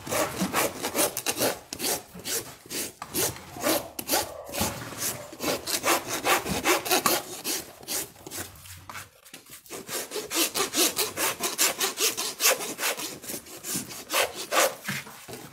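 Farrier's hoof rasp filing the underside of a horse's hoof, dressing it for a shoe: rhythmic rasping strokes, about three a second, with a brief pause about nine seconds in.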